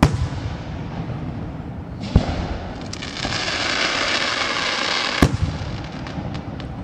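Fireworks display: sharp shell bursts right at the start, about two seconds in and about five seconds in, with a loud, steady hissing stretch between the last two.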